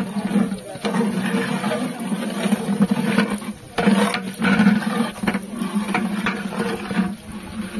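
Flat metal spatula stirring and scraping chillies and garlic around a large aluminium pot, over a steady low hum that breaks off briefly a few times.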